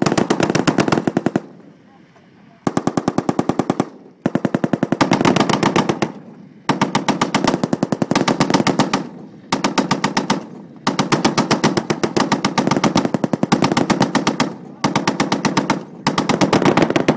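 M2 Browning .50-caliber heavy machine gun firing fully automatic in about eight bursts of one to four seconds each, with short pauses between them.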